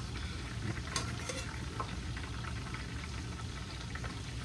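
A metal spoon scooping sauced ziti pasta from a pot into a glass baking dish: soft wet scraping with a few light clicks about a second in.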